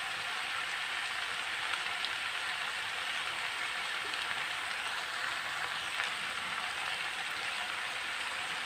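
Noodles frying in a metal kadai: a steady sizzling hiss with faint crackles.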